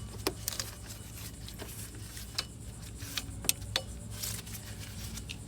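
Scattered light clicks and taps from hands fitting a serpentine drive belt back onto the harmonic balancer pulley, over a low steady hum.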